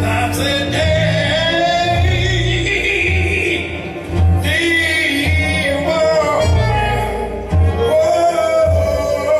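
A jazz band playing blues, with a man singing the lead over a bass line.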